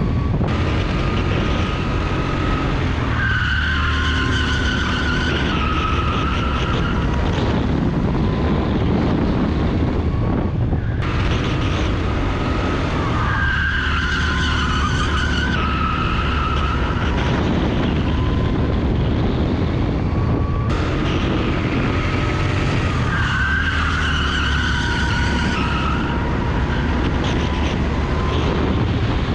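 Rental go-kart engine running at speed through a lap, heard onboard, with stretches of high tyre squeal through the corners recurring about every ten seconds.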